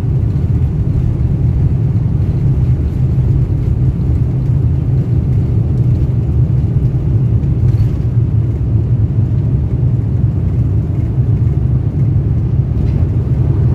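Steady low rumble inside the cabin of a passenger jet taking off: engines at takeoff power and the airframe rumbling as the plane leaves the runway.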